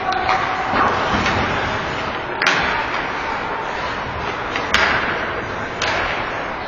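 Ice hockey play on a rink: a steady wash of skate scraping and arena noise, with three sharp cracks of stick and puck about two and a half seconds in, near five seconds and near six.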